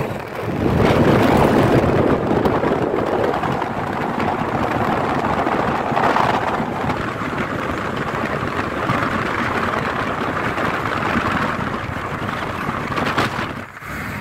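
Car driving at speed, heard from inside the cabin: a steady rush of road and wind noise. It dips briefly just after the start and again near the end.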